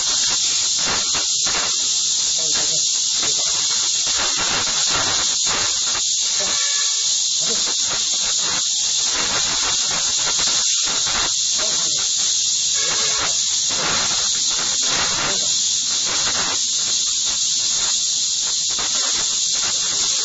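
A loud, steady high hiss with irregular soft knocks and rustles beneath it.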